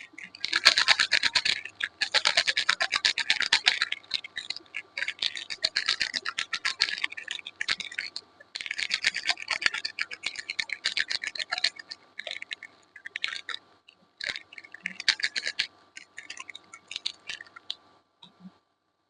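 Soap being scraped in fast, repeated scratchy strokes, coming in bursts of one to three seconds with brief pauses, fading into a few scattered strokes near the end.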